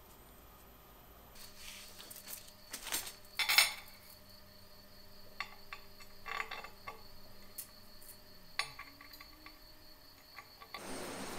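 Steel bicycle spokes clinking against each other and against a drilled metal plate as they are picked from a bundle and set upright in its holes. There are a few sharp clinks, the loudest about three and a half seconds in.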